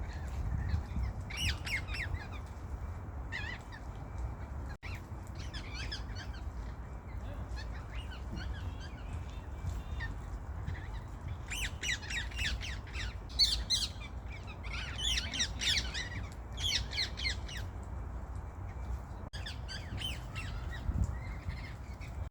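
Feral parrots calling: clusters of harsh, rapid, high-pitched calls that come in bursts and pause, busiest in the second half, over a steady low rumble.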